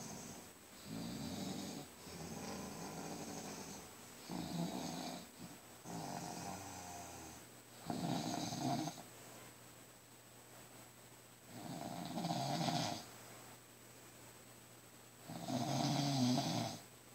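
A man snoring loudly in his sleep: about seven snores, each a second or so long. They come every couple of seconds at first, then slow to one every three or four seconds.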